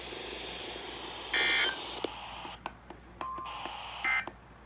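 Emergency Alert System digital data bursts, the end-of-message signal that closes a warning: a short buzzy warbling tone burst about a second in and a fainter one near the end, with a brief beep between them. A steady radio hiss and a few clicks run underneath.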